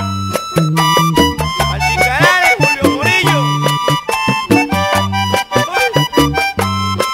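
Vallenato conjunto playing an instrumental passage: a button accordion carries the melody over a bass line and a steady percussion rhythm.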